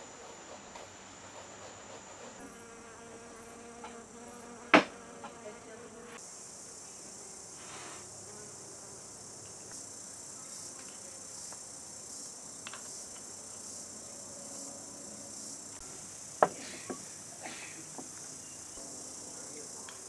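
Steady high-pitched chirring of insects, growing louder about six seconds in. Two sharp knocks stand out, one about five seconds in and one near sixteen seconds, with a few fainter clicks.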